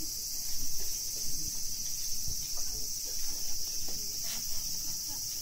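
A steady, high-pitched chorus of insects shrilling in the garden trees.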